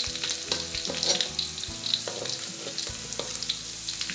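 Chopped onion sizzling and crackling in hot oil in a metal wok, frying until crisp, while a metal spatula stirs and scrapes against the pan with occasional sharper knocks.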